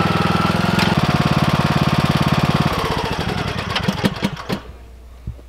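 John Deere lawn tractor's engine running with an even pulsing beat, then slowing with a falling pitch and stopping about four and a half seconds in.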